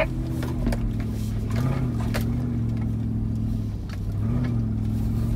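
Toyota Land Cruiser 100's V8 engine running at low speed, heard from inside the cabin while crawling over a rutted grass track. Its note rises briefly twice, with scattered knocks and rattles from the bumpy ground.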